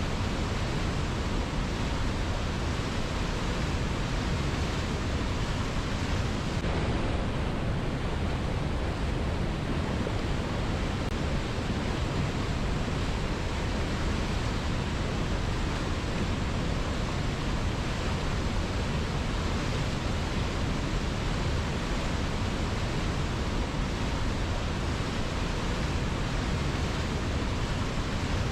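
River water rushing steadily, an even, unbroken sound of flowing water.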